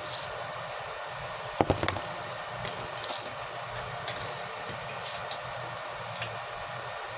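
Welding work on steel pipe and rebar: a steady hiss with a low hum, broken by a few sharp metal clinks, the loudest about a second and a half in.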